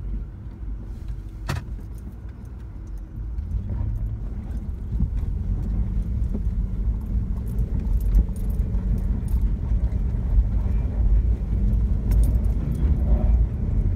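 Inside a Jeep's cab as it drives a snowy, muddy trail: a low engine and drivetrain rumble that grows louder about four seconds in, with light rattling ticks from the cabin and one sharp click near the start.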